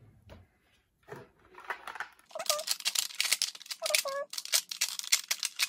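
Plastic makeup compacts clicking and clattering against a clear acrylic organizer as they are handled, a rapid run of sharp clicks from about two seconds in, with a few short squeaks among them.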